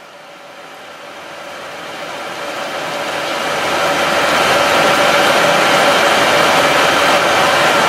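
Steady rumbling noise of water boiling hard in a tank around a submerged SunCell reactor during its run, with a faint steady hum. It swells up over the first few seconds, then holds level.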